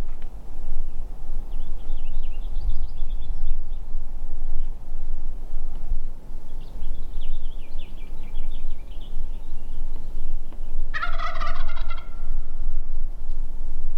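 A wild turkey gobbler gobbles once, loud and rattling, about eleven seconds in, over a steady low rumble. Fainter, quick trilling calls come and go before it.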